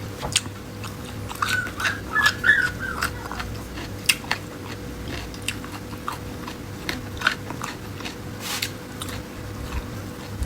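Close-up eating sounds: chewing and biting, with wet mouth clicks and smacks scattered through. There is a brief squeaky patch about two seconds in.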